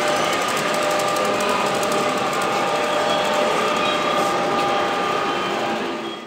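Gauge 1 model freight train of coal wagons rolling on brass track, its wheels making a fast, even clicking over a steady background hum with a few held tones. The sound drops away abruptly at the very end.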